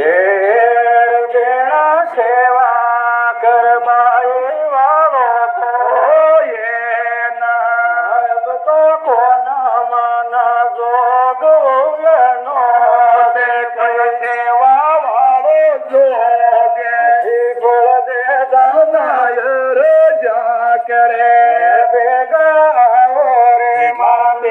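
A man singing a devotional folk song, holding long notes that slide and waver up and down, loud and continuous.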